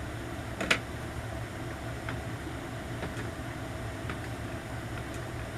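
Light clicks and taps of plastic phone cases being handled and set in place, one sharp click under a second in and fainter ones about once a second after it, over a steady low hum.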